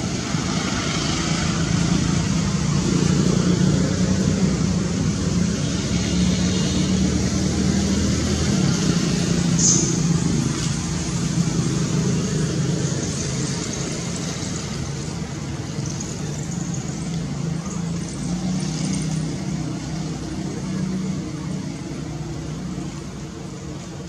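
A motor vehicle's engine running steadily with a low hum, growing louder a few seconds in and slowly fading toward the end.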